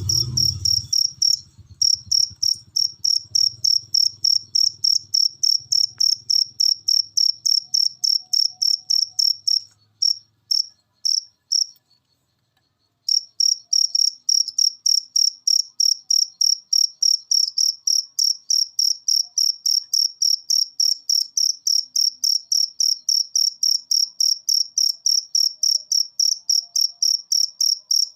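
A cricket chirping in a steady, high-pitched rhythm of about two chirps a second, stumbling and breaking off for about a second around twelve seconds in before resuming.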